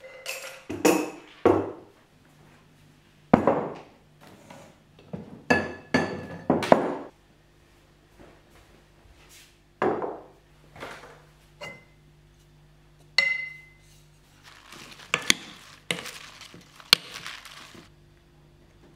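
Tableware set down on a wooden table: a series of clinks and knocks from glass, ceramic dishes and cutlery, some ringing briefly. Near the end, wooden salad servers scrape and rustle as salad is lifted from a ceramic bowl onto a plate.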